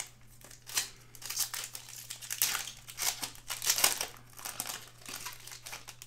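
Foil trading-card pack wrapper crinkling as it is torn open and handled by hand, a run of irregular crackly rustles that is loudest a little before the end.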